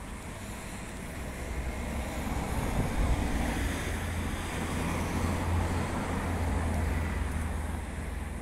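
Wind buffeting the microphone with a low rumble, under road traffic noise that swells about two seconds in and eases near the end.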